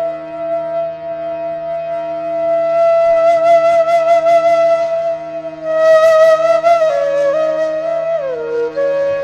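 Background music: a flute holds long notes with vibrato over a steady low drone, sliding down to a lower note near the end.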